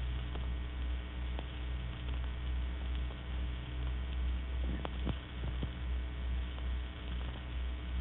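Steady low mains hum with faint scattered clicks and crackle, on a narrow-band old recording; a brief faint sound about five seconds in.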